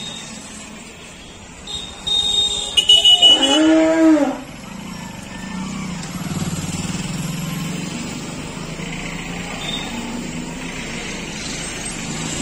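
An elephant's call: one loud, low cry that rises and then falls in pitch, about three seconds in. Afterwards a motorcycle engine runs steadily at low speed.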